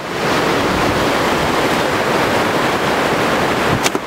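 Steady rush of river water running through a rocky gorge, with one sharp click near the end.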